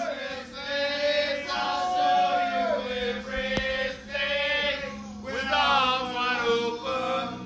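Several men's voices singing together with long held notes, with a single sharp click about halfway through.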